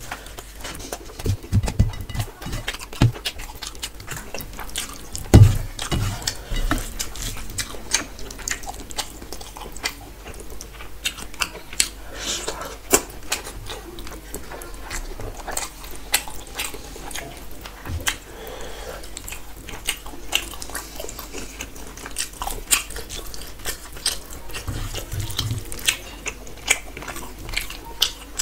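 Close-miked eating with the hand: wet squishing of rice and curry being mixed and scooped from a steel plate, with a steady run of sharp wet mouth clicks and smacks. A heavier thump comes about five seconds in.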